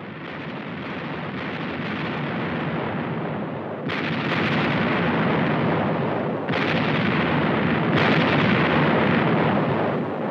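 Heavy gunfire and explosions: a continuous rumble that builds up, with sudden blasts about 4, 6.5 and 8 seconds in.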